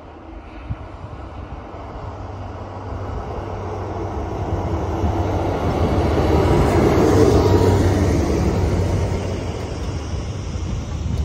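JR Freight DF200 diesel-electric locomotive approaching and passing with its engines running, growing louder to a peak about seven seconds in. Container wagons then roll by on the rails.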